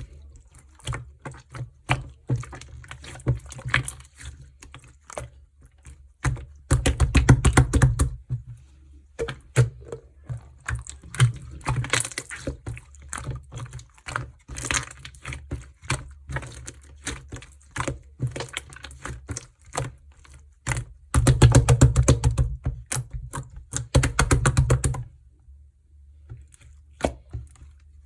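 Black gold-glitter slime being squished and pressed by hand, giving a stream of sticky clicks and pops. Two longer runs of rapid popping come about a quarter of the way in and again near the end.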